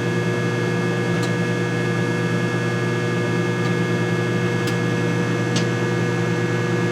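Microwave oven running with a steady, loud electrical hum while it cooks two eggs, with a few faint ticks.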